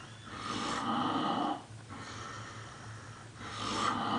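A man snoring heavily in his sleep: one long snore lasting over a second, a quieter breath, then a second snore beginning near the end.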